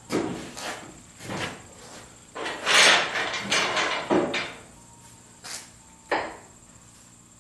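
Parts and equipment being handled and shifted under the car: a series of sharp knocks and clunks, with a longer, louder scraping rattle from about two and a half to four seconds in.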